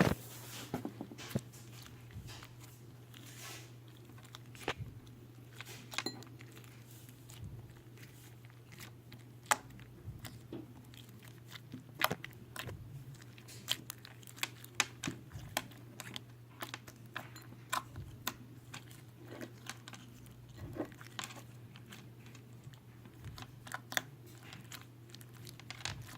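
Creamy fluffy slime being squished and worked by hand, giving irregular wet pops and small crackles as trapped air bursts. A steady low hum runs underneath.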